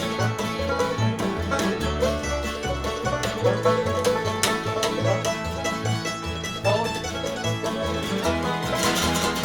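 Instrumental break in a bluegrass-style song: plucked string instruments playing over a stepping bass line, with some notes sliding in pitch.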